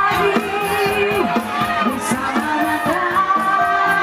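Live band music with a woman singing over a steady beat, and crowd noise underneath.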